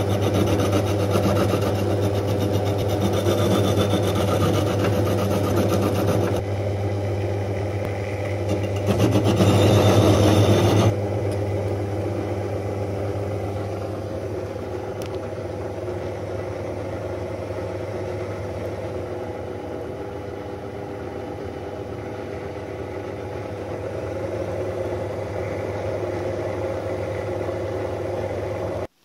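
Benchtop drill press running steadily, its grinding bit scraping away the inner wall of an aluminium throttle body to widen the bore. The scraping is heavier at the start and loudest around nine to eleven seconds in. The sound cuts off abruptly just before the end.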